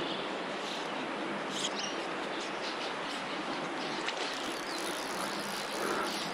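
Steady rushing of shallow river water flowing over a rocky bed.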